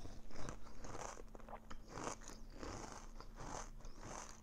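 Close-up crunching and chewing of a mouthful of chocolate frosted corn flakes with marshmallows: a steady run of crunches, about two a second. The flakes are unusually hard, "super crunchy, like bad crunchy."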